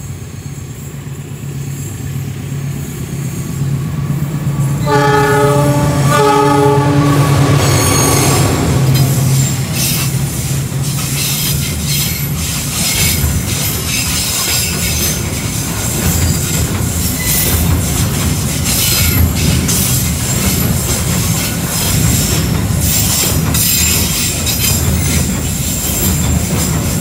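A freight train's locomotive approaches with its engine hum building, sounds a horn blast lasting a couple of seconds about five seconds in, then the container flat wagons run past close by, their wheels clattering rhythmically over the rail joints with a high wheel squeal.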